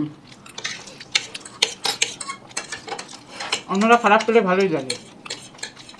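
Forks clicking and scraping against plates while noodles are eaten, a string of sharp clicks, with a short stretch of a person's voice about four seconds in.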